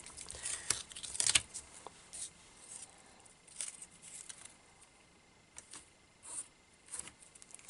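Washi tape handled on paper: rubbed down on card stock and peeled off, then pressed onto a stamp pad, giving light scattered rustles and small taps. The loudest cluster comes in the first second and a half.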